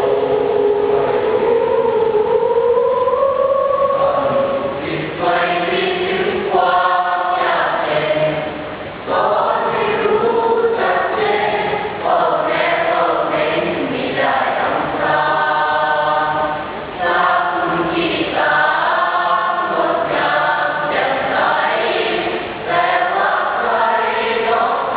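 A children's choir singing, phrase after phrase, with the sung notes gliding and changing pitch and short breaks between phrases.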